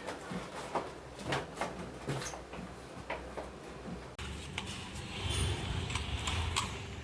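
Scattered light clicks and knocks of handling work. About four seconds in, the sound changes abruptly to a steady low rumble with a few more clicks.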